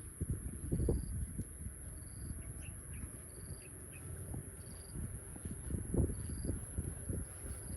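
A steady high insect trill, as of crickets, with a short high chirp repeating about once a second, over irregular low rumbling thumps.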